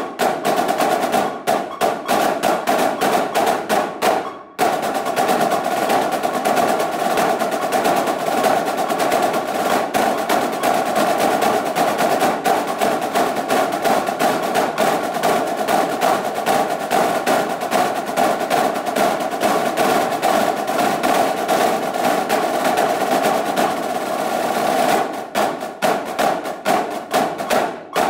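A snare drumline playing an exercise in unison with sticks: accented strokes at first, a short break, then a long stretch of fast, even notes like a roll, returning to separated strokes near the end.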